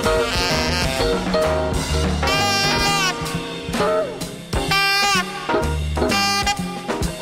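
Background music: a swing-style jazz tune with held, bending horn notes over drums and a bass line.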